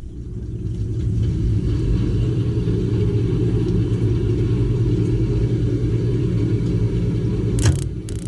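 Gas burners of a Crown hot-water boiler firing, a steady low rumble. A sharp click sounds near the end.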